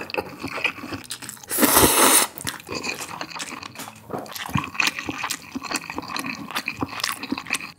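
A person slurping a mouthful of cold bibim noodles about a second and a half in, then chewing them in a long run of small wet clicks.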